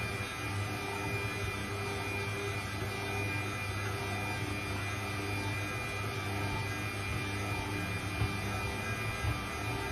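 Stand mixer's electric motor running steadily, a constant hum with a thin high whine, as its dough hook kneads wet bread dough.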